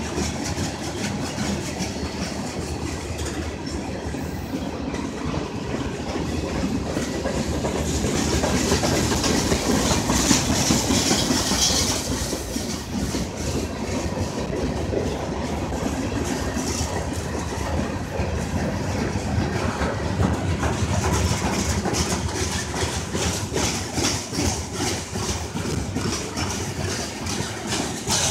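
Freight cars (tank cars, covered hoppers and boxcars) of a local freight train rolling past close by. There is a steady rumble of steel wheels on rail, with rapid clickety-clack as the wheel sets cross the rail joints.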